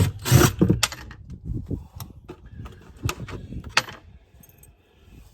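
Irregular knocks, clunks and rattles of hand work on a cabinet fixed with screws inside a truck camper. It is loudest at the start, with single sharp knocks about once a second, and quietens after about four seconds.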